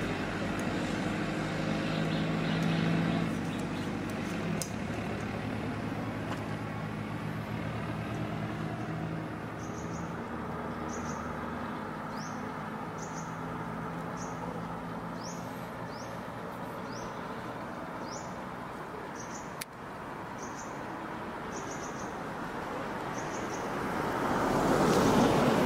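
Road traffic: car and truck engines running and tyre noise as vehicles pass, with one vehicle passing close and loud near the end. A bird calls in the background with short rising chirps, about one a second, through the middle.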